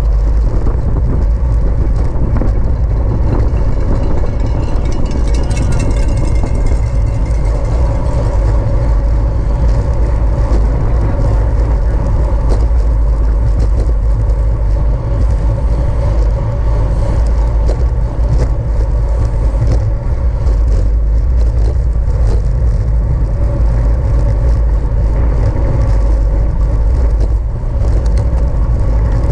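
Wind rushing over a camera microphone riding along in a road bicycle race: a loud, steady low rumble.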